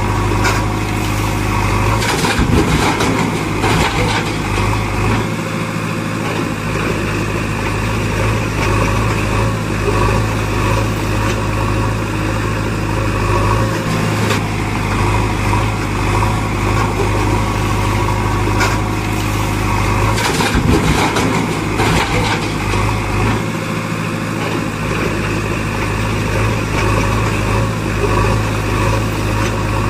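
Heavy-machine engine sound running steadily at idle, with brief clattering about two seconds in and again about twenty seconds in; the same stretch repeats, as a looped engine sound effect laid over toy play.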